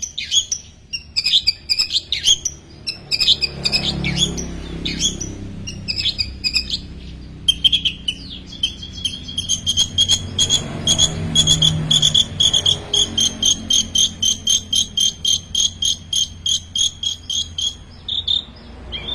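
Long-tailed shrike (cendet) singing a full mimicry song, copying other small birds' calls. Varied quick chirped phrases give way, about seven seconds in, to a long run of rapid, evenly repeated high notes, about three a second.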